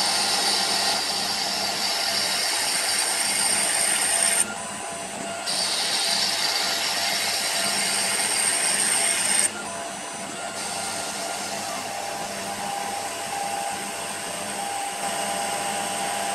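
Emco PC50 CNC lathe running, taking light turning cuts on a brass rod: a steady mechanical whine with a higher hiss that drops out twice, briefly, about four and a half and nine and a half seconds in, returning weaker after the second break.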